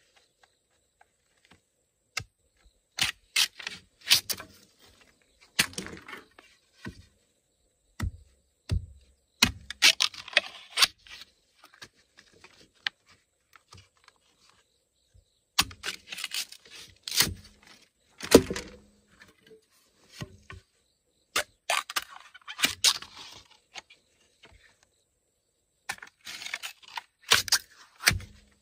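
Irregular sharp knocks, clicks and scrapes in short clusters, with a few duller thuds and quiet gaps of a second or two between them, as of hand work with tools.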